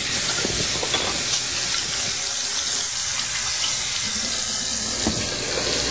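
Kitchen sink tap running, its stream splashing over hands being washed under it.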